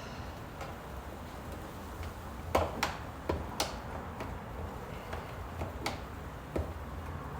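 Several short, sharp clicks and taps, like small hard parts being handled and fitted, spread over a few seconds above a low steady hum.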